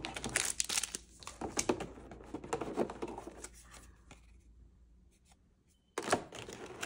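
Cardboard and plastic packaging of a trading-card box being handled as the booster packs are pulled out: irregular rustling, scraping and tearing that dies away about four seconds in, then starts again after a short near-silent pause.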